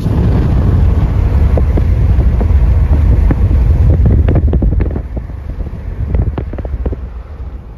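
Wind buffeting the microphone: a loud, low rumble that eases after about five seconds, with scattered light clicks in the second half.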